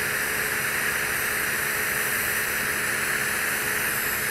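TIG welding arc hissing steadily on Monel 400 pipe during the root pass, with a faint steady hum under it.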